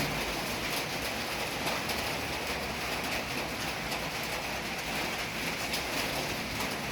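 Light rain falling: a steady hiss with scattered drop ticks.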